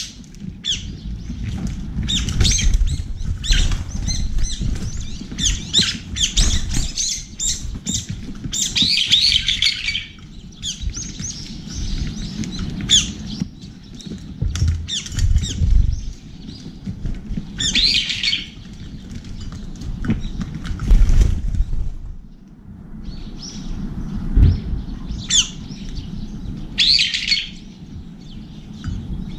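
A flock of Eurasian tree sparrows and brown-eared bulbuls at a seed feeder, chirping and calling with wing flaps as birds come and go. The chirping is dense for about the first ten seconds, then comes in short scattered bursts, over a low rumble.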